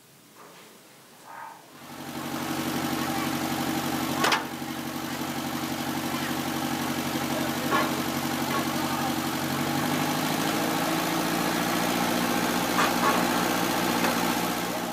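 Water-well drilling rig's engine running steadily. It comes in suddenly about two seconds in, and a few sharp knocks sound over it.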